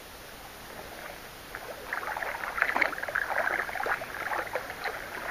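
Kayak paddles dipping and splashing in the water. The sound builds from about one and a half seconds in to a dense run of small splashes and drips.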